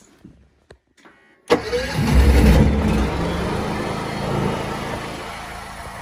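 Honda EU7000iS inverter generator's engine starting on its electric starter, triggered remotely by an automatic generator start. It fires suddenly about a second and a half in, is loudest for the next second, then settles into a steady run.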